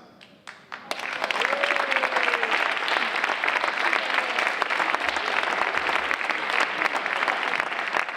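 Audience of schoolchildren and adults applauding, starting about a second in, with a few faint voices mixed in.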